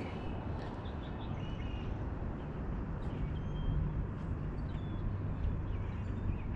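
Outdoor ambience: a steady low rumble, with a few short, high bird chirps scattered through it.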